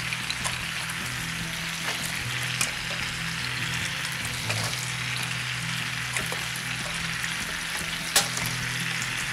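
Potato samosas deep-frying in hot oil in a wok, giving a steady sizzle, with a few sharp clicks of metal tongs as the golden samosas are lifted out onto a wire rack. The loudest click comes about eight seconds in.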